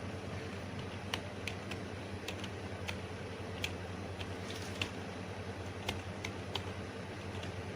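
Scattered, irregular clicks of computer keys being pressed, over a steady low hum.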